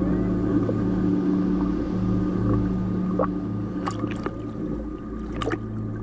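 A watercraft engine idling with a steady low hum that pulses slightly, with a few short sharp clicks about three, four and five and a half seconds in.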